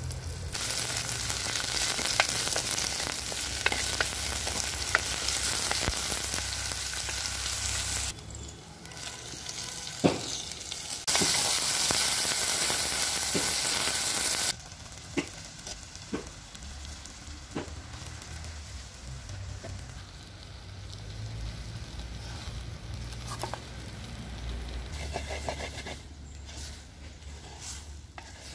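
Onions, curry leaves and tomato frying in hot oil in a clay pot, sizzling loudly for about the first half with a short lull in the middle. After that the sizzle is much softer, and a ladle knocks and scrapes as it stirs in the pot.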